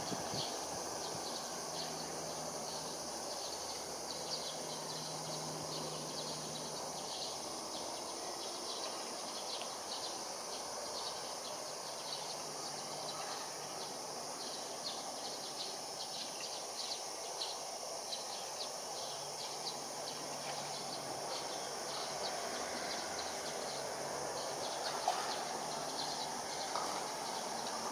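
Steady distant city hum with insects chirping repeatedly in a high register over it.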